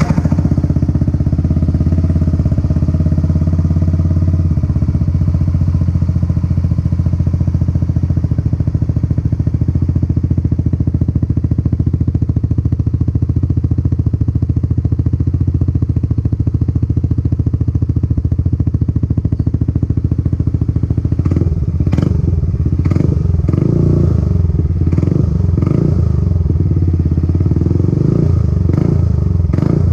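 Yamaha NMAX 155's single-cylinder engine running through an aftermarket PR2 exhaust with its silencer fitted, idling steadily. From about two-thirds of the way in, the sound turns uneven, with repeated short surges.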